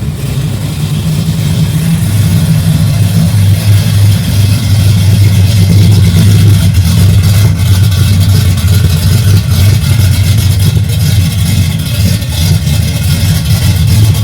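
Carbureted V8 engine idling steadily on a freshly rebuilt Holley 750 four-barrel carburetor, now holding its idle.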